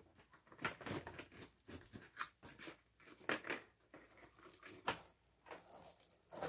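Rustling and crinkling of packaging, with irregular light knocks and clicks, as items are handled and lifted out of a DVD box set.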